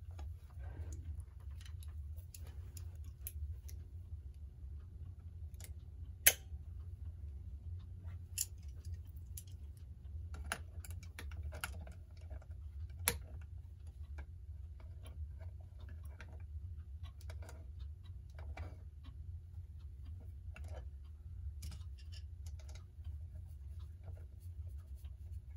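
Scattered small metallic clicks and taps of vise-grip pliers gripping a clock's set-knob stem while the knob is unscrewed, with sharper clicks about six and thirteen seconds in, over a steady low hum.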